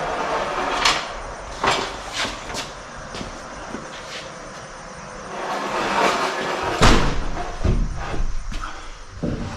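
A string of knocks and clunks from heavy framing lumber being handled, with scraping and shuffling between them. The loudest clunk comes about seven seconds in.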